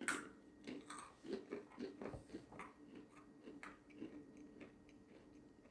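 Faint crunching of a dry baked dog biscuit being bitten and chewed, a string of short crisp crunches that die away after about four and a half seconds.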